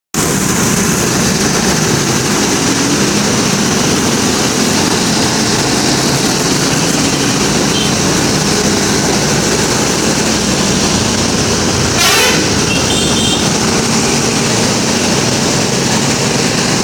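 Steady running noise of a passing bus, with faint horn tones underneath. A single sharp knock comes about twelve seconds in.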